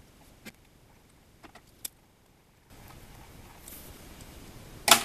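A few small clicks and ticks from hands handling wires and connectors at an electrical control box, then one louder sharp knock near the end.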